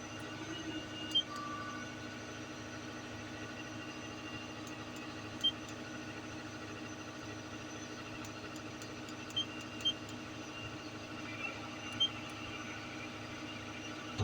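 Doosan excavator's diesel engine running steadily, with about five short sharp clicks over it.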